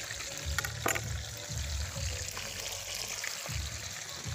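Fish frying in a pot of hot oil, a steady sizzling hiss, with irregular low rumbles and a few sharp clicks about a second in.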